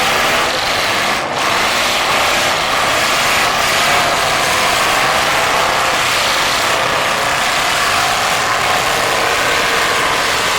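Several stock demolition derby cars' engines running and revving together in a steady, loud din, the pitches wavering up and down as the drivers work the throttle.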